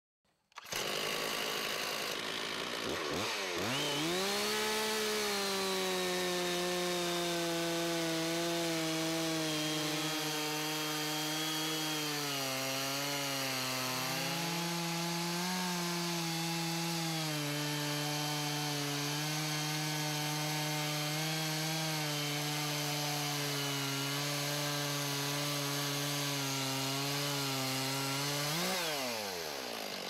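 Chainsaw mounted on a chainsaw sawmill ripping lengthwise through a log. The engine climbs to full throttle about three seconds in and holds a steady high pitch that sags slightly under the load of the cut, then its pitch falls sharply near the end as it comes off throttle.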